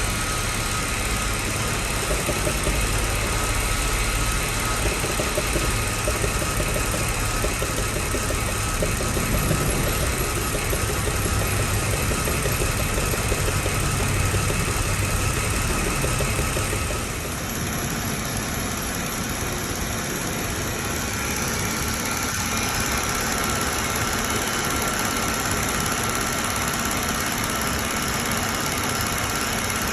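Mercedes-Benz W211's engine running at idle, a car brought in for a recurring misfire. The low rumble drops away and the sound changes about halfway through.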